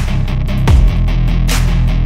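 Background rock music with distorted guitar, bass and a steady drum beat.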